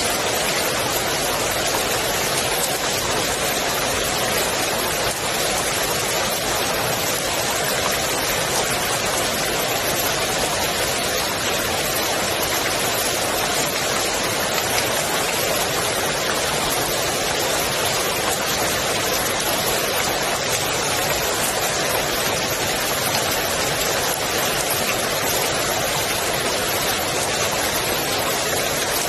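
Steady rain falling onto the water of a swimming pool: a dense, even hiss of drops.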